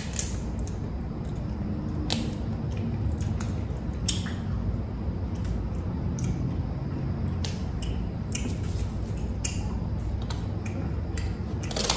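Seafood shells, king crab legs and shrimp, being cracked, snipped and peeled by hand. Scattered sharp cracks and clicks come every second or two over a low steady hum.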